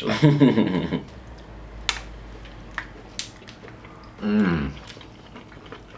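Someone biting into and chewing a crumb-topped honey bread: a few small, sharp, crisp clicks, with short wordless murmurs from a man near the start and again past the middle.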